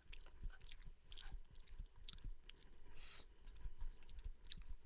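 A person chewing a mouthful of cooked beans, with an irregular run of small clicks.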